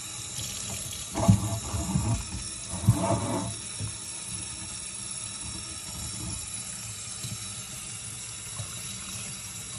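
Water from a kitchen sink hose sprayer running steadily, rinsing shampoo off a small dog's coat into a stainless steel sink. It grows louder and uneven a couple of times between about one and three and a half seconds in.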